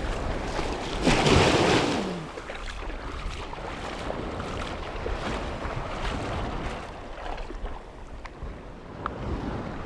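Shallow sea surf washing and lapping around the wading angler, with wind buffeting the microphone. The sound swells louder about a second in, then settles into an even wash.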